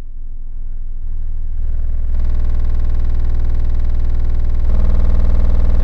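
Car audio subwoofers playing a very low bass tone of about 20 hertz, its level swelling over the first two seconds and then stepping louder twice, loud enough to set the car's doors moving.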